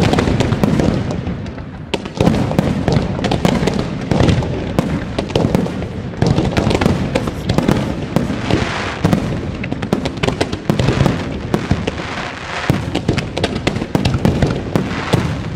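Fireworks display: a dense, unbroken barrage of rapid, overlapping bangs and crackling from aerial shells and salutes. A heavy bang opens it, and another loud burst comes about two seconds in.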